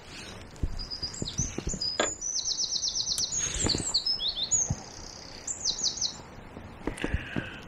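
A small songbird singing a fast run of high chirps and trills for about five seconds, with a few low knocks underneath.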